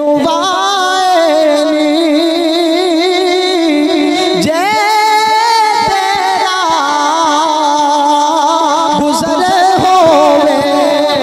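A man singing a Punjabi devotional poem (kalam) into a microphone, in long held notes that waver in pitch and bend through melismatic turns.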